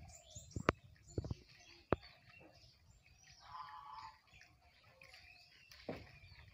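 Small birds chirping faintly, broken by a few sharp taps or knocks.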